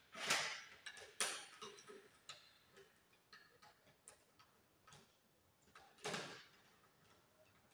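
Faint clicks and rustles of gloved hands handling electrical wires at a plastic switch box on PVC conduit, with a few louder scrapes near the start and one about six seconds in.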